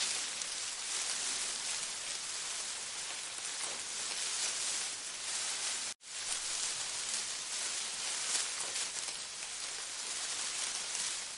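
Steady rain-like hiss that cuts out for a moment about six seconds in.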